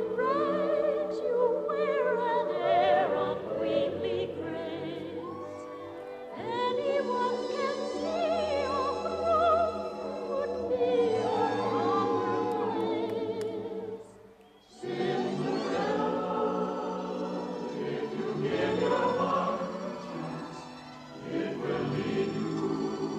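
Choral music with operatic-style singing: long held vocal lines with vibrato. It breaks off briefly about fourteen seconds in, then resumes.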